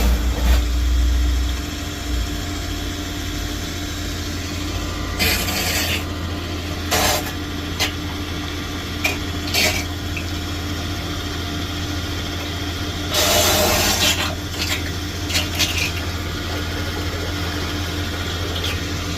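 An engine running steadily at a low drone, with several short rasping, hissing bursts over it; the longest burst comes about two-thirds of the way through.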